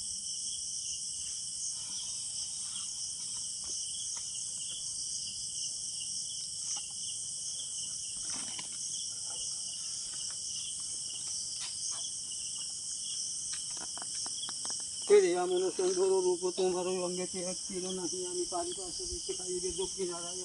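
Night chorus of crickets and other insects, a steady high-pitched trilling, with scattered faint rustles and clicks. About three-quarters of the way in, a person's voice starts a long, drawn-out call that becomes the loudest sound.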